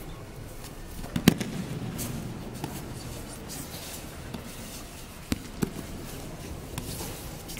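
Aikido breakfalls: bodies and hands slapping onto judo mats, one loud slap about a second in and two lighter ones a little after five seconds. Between them is soft rubbing and shuffling on the mats.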